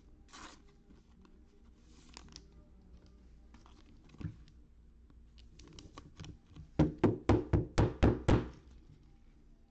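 Trading cards being handled on a tabletop: faint rustles of cards sliding, a single knock a little past four seconds, then a quick run of about eight dull thunks, some five a second.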